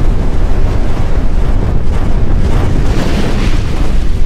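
Loud logo-intro sound effect: a continuous deep rumbling whoosh, with a hissing swell a little past the middle.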